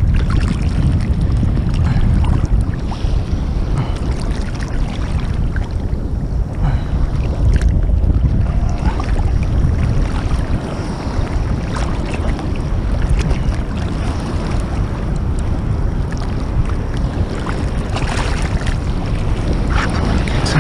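Wind buffeting the microphone in a steady low rumble over choppy ocean water sloshing around it, with a few brief splashes.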